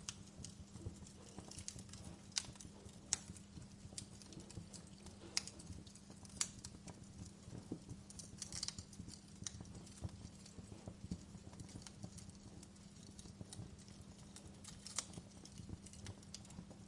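Wood fire crackling in a stone fireplace: irregular sharp pops and snaps over a low steady hum.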